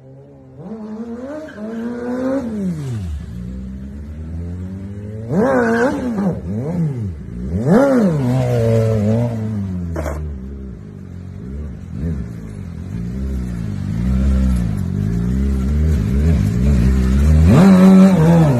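Superbike engine revving hard, its pitch climbing and dropping again and again with the throttle, loudest in the last second or so.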